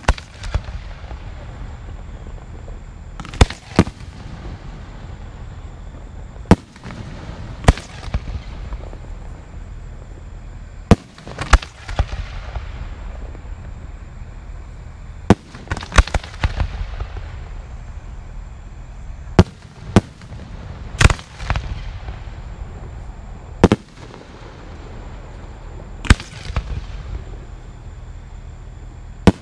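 Aerial fireworks shells going off: sharp bangs every few seconds, often two close together, some followed by a fading crackle, over a steady low rumble.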